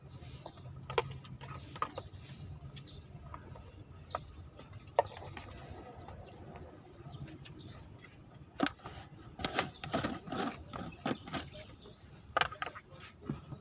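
Clicks and knocks from plastic food containers and an insulated water jug being handled, scattered at first and coming thick and fast from about nine to twelve seconds in, over a low steady hum.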